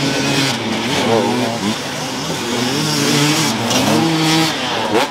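Enduro dirt bike engine revving up and down in short bursts of throttle as it works through deep mud, with a sharp rev near the end.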